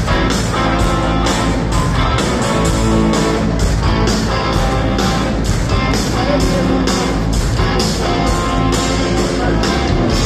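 Live rock band playing an instrumental passage, electric guitar over bass and drums keeping a steady beat.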